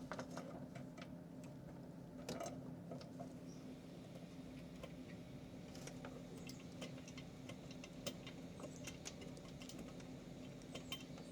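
Faint, scattered light clicks and taps of metal as exhaust manifold bolts are started by hand, over a steady low hum.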